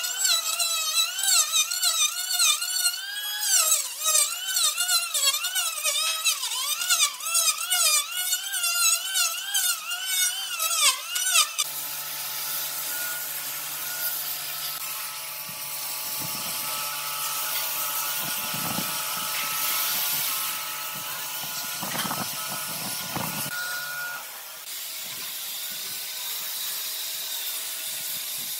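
Electric hand planer cutting across a wooden tabletop, its motor whine wavering up and down in pitch as it bites. About twelve seconds in it gives way to an angle grinder with a sanding disc sanding the wood: a steady hum over a hiss.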